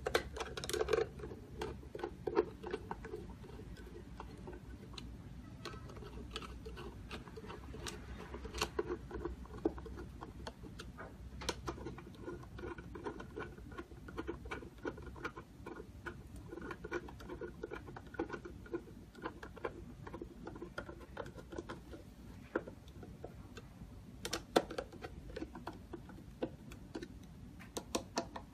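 Light, irregular clicking and ticking of hand assembly work on a keypad door lock: small screws and metal lock parts being handled and driven in by screwdriver, with a few sharper clicks now and then.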